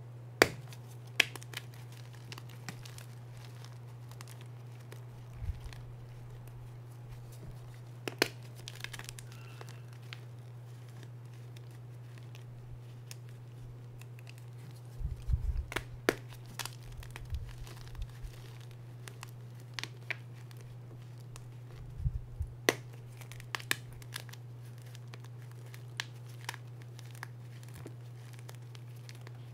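Reformed gym chalk blocks squeezed and crumbled by hand: scattered sharp crunches and crackles, with a busy cluster about halfway through and another about three-quarters in. A steady low hum runs underneath.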